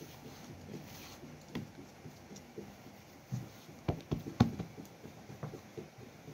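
Hands patting and rubbing oil over a thin sheet of dough on a large metal tray, with soft patter throughout and a few sharp knocks about four seconds in.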